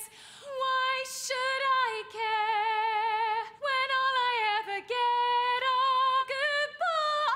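A woman singing a cappella in a high voice: long held notes with strong vibrato, in several phrases broken by short pauses for breath.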